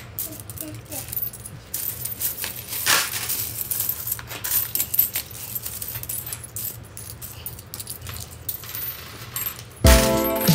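Coins clinking as they are handled and dropped into stainless steel trays and a metal colander while being sorted and counted: many small clinks. Background music starts near the end.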